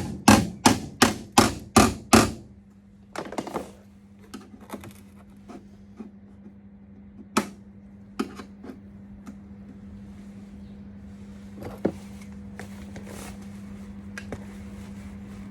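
Hammer striking a steel body repair panel, about six quick sharp blows that stop about two seconds in. Scattered light knocks and clicks follow over a steady low hum.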